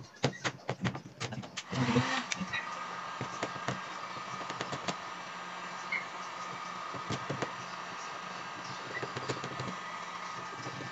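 A few sharp clicks and knocks, then about two seconds in a handheld electric heat gun switches on and runs steadily. Its fan and blower give a hiss with a steady whine and low hum as it heats polyethylene filler strips to weld a crack in a plastic kayak hull.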